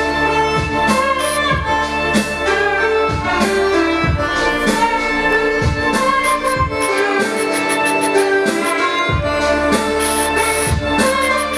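Music playing through Celestion Ditton 44 hi-fi speakers and a Bang & Olufsen Beolab 2 active subwoofer, heard in the room: a melody of held notes over a deep bass beat a little under once a second.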